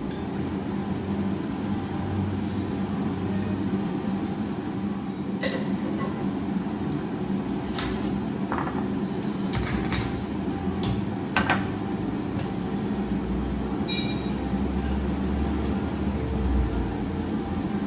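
A handful of sharp clinks of metal kitchenware and containers being handled, over a steady low kitchen hum, then a spatula stirring spice powders in a pan near the end.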